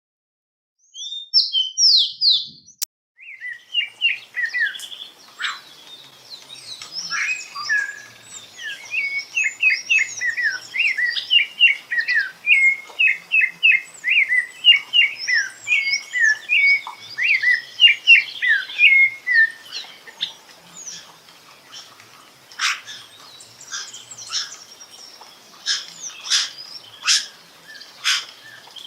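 Songbirds chirping and singing. After about a second of silence there is a brief cluster of high chirps, then a long fast run of repeated chirps, and sharp short chips near the end.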